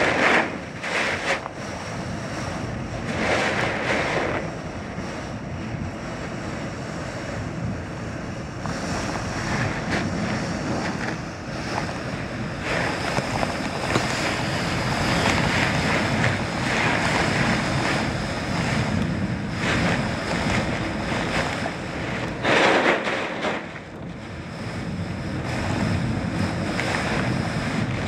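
Hurricane wind and storm surf: a continuous rush of wind over the microphone and waves breaking on the shore, swelling louder about three seconds in and again about four-fifths of the way through.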